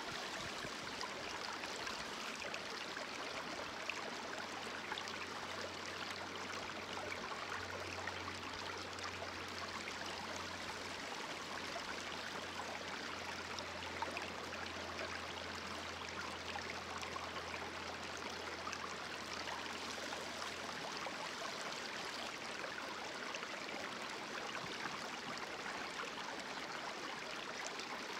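Creek water rushing steadily through and around a fluid bed gold sluice, with a few faint knocks.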